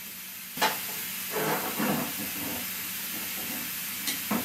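Hairdryer blowing, a steady hiss of rushing air that gets louder after a click about half a second in. A second or so later there is some rustling, and another click comes near the end.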